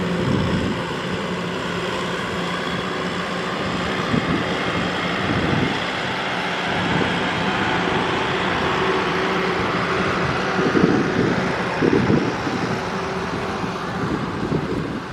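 Kubota DC-105X rice combine harvester running with a steady, even drone, with a few low buffeting bursts in the second half.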